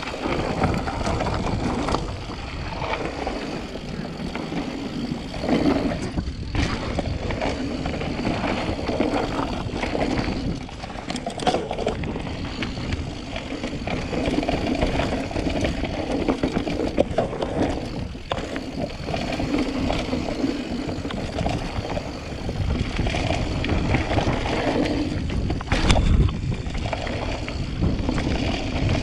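Trek Fuel full-suspension mountain bike ridden down a dirt singletrack trail: tyres rolling over the dirt under a steady rushing noise, with frequent knocks and rattles as the bike hits bumps.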